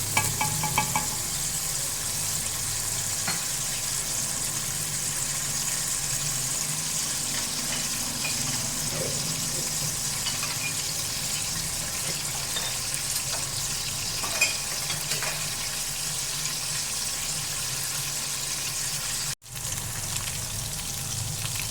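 Chopped onions sizzling steadily in hot oil in a pan, being fried toward golden brown, with a few light clicks of a spoon against the pan. The sound cuts out for a moment near the end.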